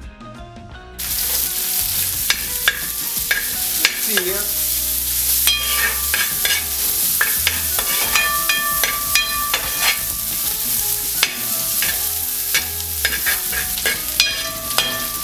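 Sliced shallots, ginger, garlic and green chillies sizzling in hot coconut oil in a steel wok, stirred with a metal spoon that clicks and scrapes against the pan. The sizzle starts abruptly about a second in and holds steady.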